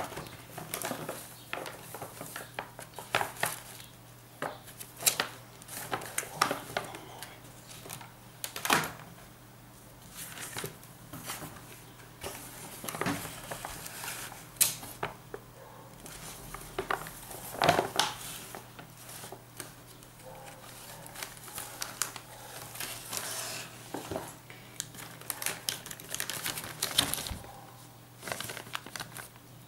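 Paper gift bag and clear plastic bag being handled and opened: irregular crinkling and rustling with scattered sharp crackles and taps.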